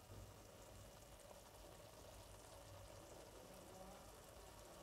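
Near silence: a faint steady hiss of food cooking gently on the stovetop.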